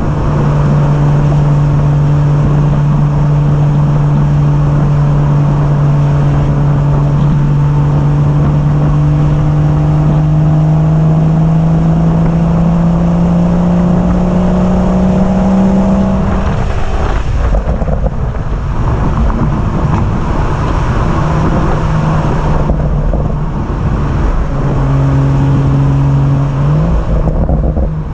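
BMW M140i's 3.0-litre turbocharged inline-six engine and stock exhaust in sport mode, pulling under steady load with its note climbing slowly for about sixteen seconds. The engine then drops away, leaving several seconds of road and tyre noise. Near the end the engine note comes back and jumps up in pitch in quick steps.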